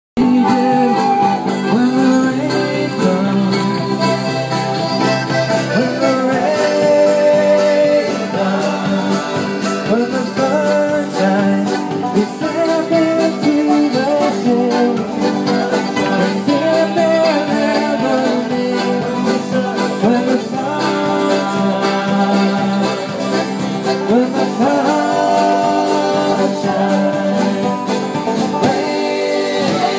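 Live folk band playing a song: men singing to acoustic guitar and other instruments.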